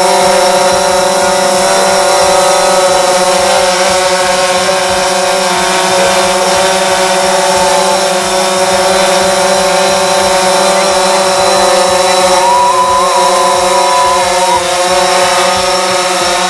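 DJI Phantom 4 Pro quadcopter hovering close by: the loud, steady buzzing whine of its four electric motors and propellers. Near the end its pitch wavers for a couple of seconds as it manoeuvres.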